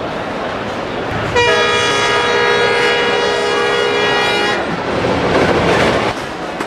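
Train horn sounding one steady blast of about three seconds, followed by a short rushing hiss.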